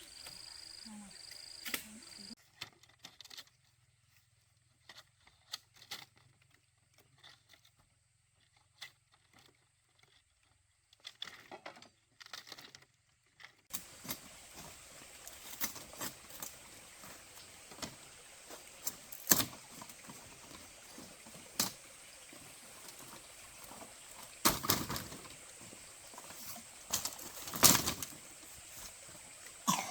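Irregular knocks and clicks from hand work, with a few louder knocks near the end.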